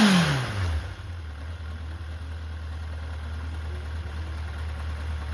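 Honda CB750F's air-cooled inline-four engine dropping back from a throttle blip and settling into a steady idle within about a second. It is running cleanly, without abnormal noise.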